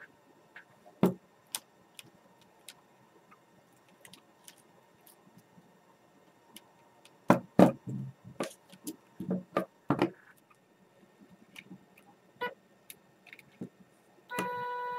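Clicks and knocks of hands handling a small DIY gimbal rig of perfboard, brackets and wiring, loudest in a cluster around the middle. About a second before the end a steady electrical whine made of several evenly spaced tones sets in: the gimbal's two brushless motors being driven by their L298N drivers.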